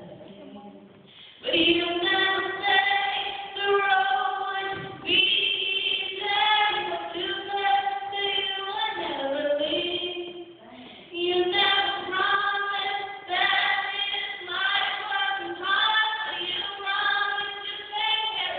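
A woman singing solo in long held notes. She comes in about a second and a half in and breaks off briefly just past the middle.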